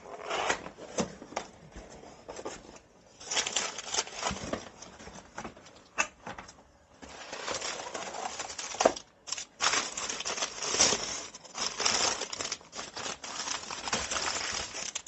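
A cardboard rifle box being opened and its packing handled: irregular rustling, crinkling and scraping, with a few sharp clicks and knocks.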